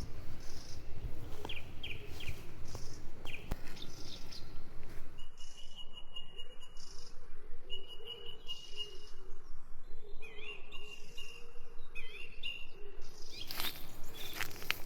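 Birds chirping and calling: short quick chirps in the first few seconds, then longer held whistled notes through the middle.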